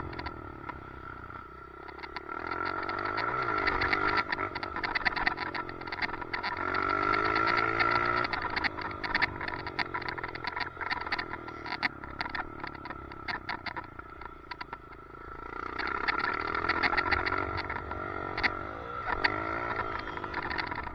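Dirt bike engine revving up and down as it is ridden round the track, heard from a helmet chin-mounted camera. A dense rapid clicking and rattling runs over it, the weird noise from a loose chin mount.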